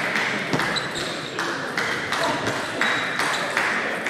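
Table tennis balls clicking on bats and tables in an irregular string of sharp ticks, about one every half second, over steady sports-hall background noise, with several tables in play at once.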